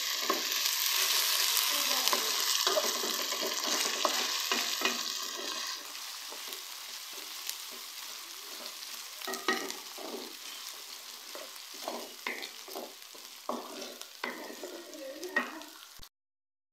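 Sliced onions and ginger-garlic paste sizzling in hot oil in a karahi while a wooden spatula stirs them, scraping against the pan. The sizzle is loudest for the first six seconds and then dies down, leaving single stirring scrapes that stand out. The sound cuts off abruptly just before the end.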